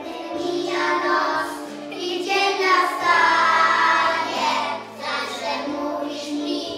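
Group of young children singing a song together in Polish over instrumental accompaniment with steady low notes.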